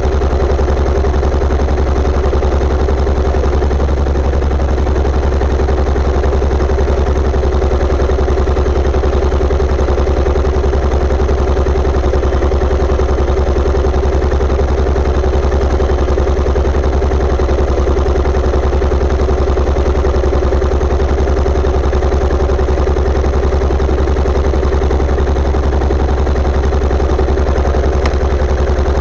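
Yamaha SR400's air-cooled single-cylinder four-stroke engine running at a steady speed, its even exhaust pulses unchanged throughout with no revving.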